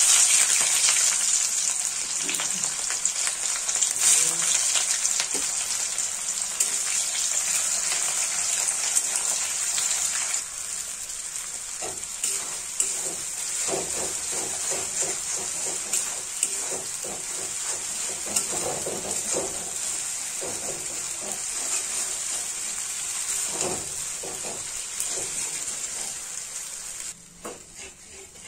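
Sliced onions sizzling in hot oil in an aluminium kadhai, loud at first and easing off after about ten seconds. From there on a metal spatula scrapes and stirs the frying masala in repeated strokes.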